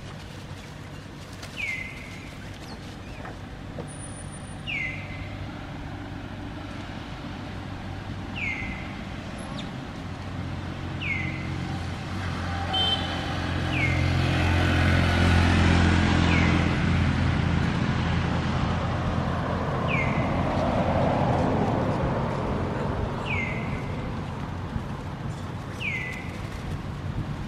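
A motor vehicle's engine grows louder and then fades as it passes, loudest about halfway through. Over it, a short falling chirp repeats every three seconds or so.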